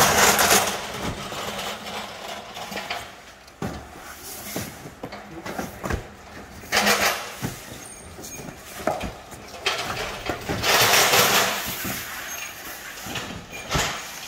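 Cardboard cartons being slid and stacked in a truck's cargo box: a few scraping rushes, each about a second long, with dull knocks between them.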